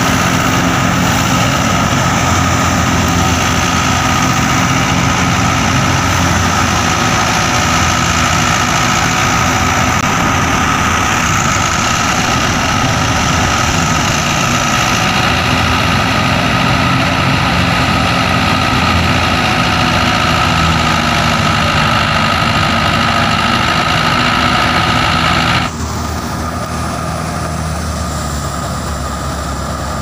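Tractor-driven wheat thresher running steadily: the tractor engine and the threshing drum, with a steady high whine over the machine noise. About 26 seconds in the sound drops slightly and the whine fades.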